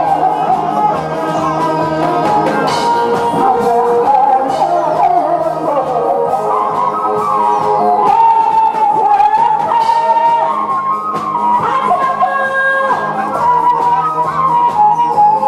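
A woman singing a Korean song into a microphone over backing music with a steady beat, holding long notes in places.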